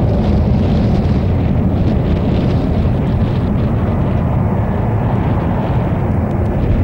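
Boeing 737-200's Pratt & Whitney JT8D turbofans at takeoff thrust as the jet climbs away, a loud, deep, crackling rumble. The higher hiss thins out about halfway through and the sound eases slightly.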